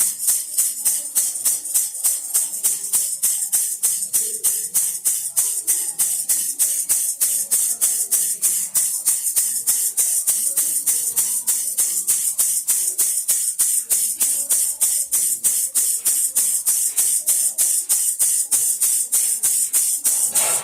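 Baby rattle shaken in a steady, even rhythm, about three to four shakes a second, each shake a short bright rattle of beads.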